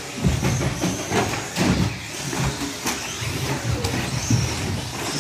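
Radio-controlled 2WD short-course trucks racing on a carpet track: motor whine and tyre noise, with a series of sharp knocks as trucks land jumps and hit the track borders.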